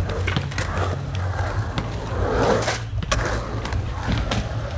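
Skateboard wheels rolling and carving across a concrete pool bowl: a steady low rumble with scattered sharp clacks, and a swell of noise about halfway through.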